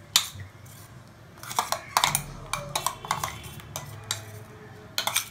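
Metal spoon scraping wet masala paste out of a mixer-grinder jar, with a series of sharp clinks and scrapes of metal on the jar rim, bunched together partway through and again near the end.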